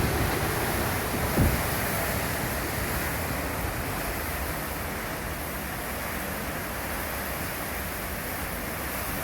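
Hurricane wind blowing steadily, with one short gust about a second and a half in, then slowly easing.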